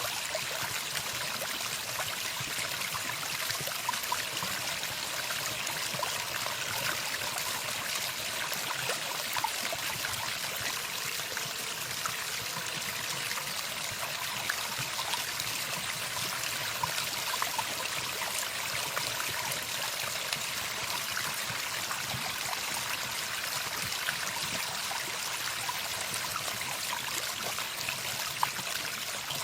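Running water flowing steadily with a stream-like trickle and small splashes, no birdsong.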